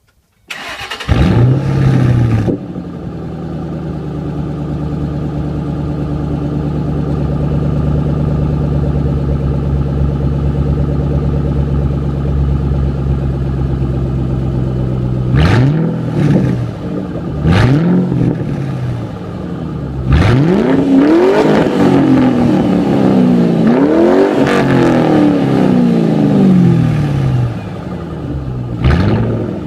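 2006 Mustang GT's 4.6-litre V8 through a muffler-deleted exhaust with the catalytic converters still on, starting (not from cold) with a loud flare, then idling steadily. About fifteen seconds in come two quick throttle blips, then a run of revs rising and falling, and one more blip near the end.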